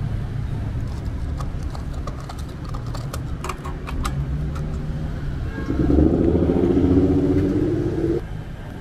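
Steady low vehicle and traffic rumble, with a cluster of sharp clicks as a car's fuel cap is unscrewed. About six seconds in, a louder engine hum comes up for roughly two and a half seconds, then cuts off abruptly.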